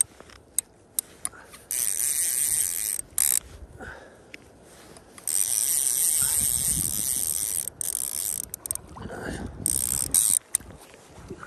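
Hardy Perfect fly reel's click check ratcheting in high, buzzing spells of one to three seconds, with short clicks between them.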